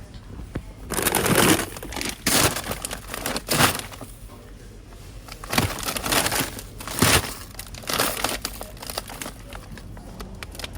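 Rustling, crinkling noise in about six irregular bursts, with quieter gaps between.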